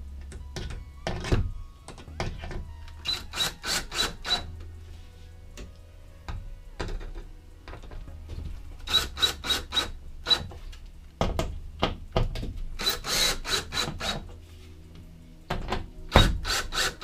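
Cordless DeWalt drill driving screws through a wooden mounting block into a plywood bed lid, in four short runs, each a quick string of sharp clicks about four or five a second over a low hum.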